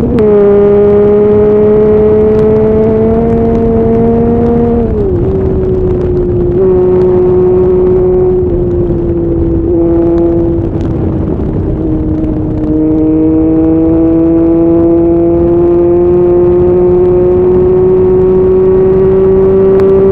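Triumph Speed Triple's inline-three engine under way at highway speed, heard from the rider's position. The steady engine note drops with an upshift right at the start and again about five seconds in, then climbs slowly as the bike pulls harder. Wind rush runs underneath.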